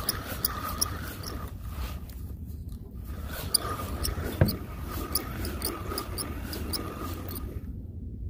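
Spinning reel being cranked to wind in line: a quick regular ticking, about four ticks a second, with a pulsing hum. It pauses briefly about two seconds in and stops shortly before the end, with a single knock about halfway through.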